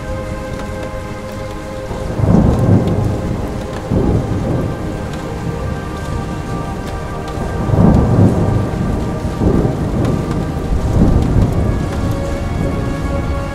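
Thunder rolling in a series of low rumbling swells, the strongest about two and eight seconds in, over steady rain.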